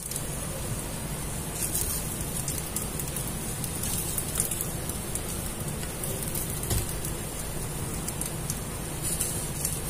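Steady soft sizzling of egg-soaked pathiri layers and chicken filling frying in a kadai on a low gas flame.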